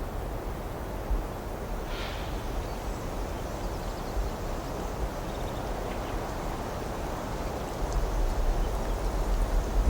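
Outdoor ambient noise with wind rumbling on the microphone, steady throughout, and a faint brief click about two seconds in.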